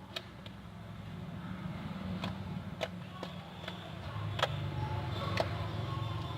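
Homemade shaving-cream slime being kneaded and squeezed by hand, giving scattered sharp clicking pops, over a steady low hum.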